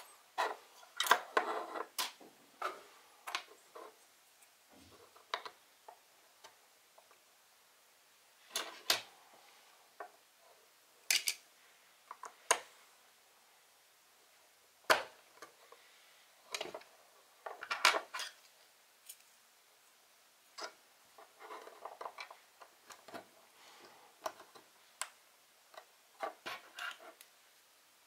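Small plastic parts of a capsule-toy railroad crossing being handled and snapped together: irregular sharp clicks and taps, some in quick clusters, with quiet gaps between.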